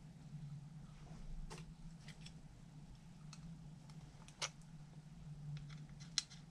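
Scattered light clicks and ticks of small parts of a scale model lift kit being handled and fitted, likely tiny retaining clips, with two sharper clicks about four and a half and six seconds in, over a steady low hum.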